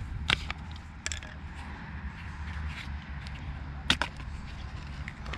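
Sharp clicks and snaps from a diesel fuel filter's retaining clamp being raised and its top housing worked loose by hand. There are three distinct clicks, the loudest about four seconds in, over a low steady hum.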